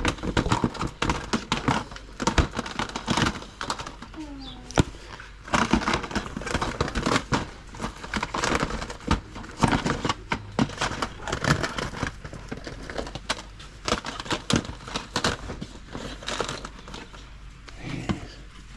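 Irregular crinkling, rustling and light knocks, the sound of items being handled and rummaged through.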